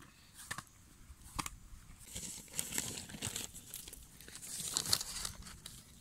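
A few soft slaps of dough patted between the hands, then, from about two seconds in, a plastic bag crinkling as it is handled.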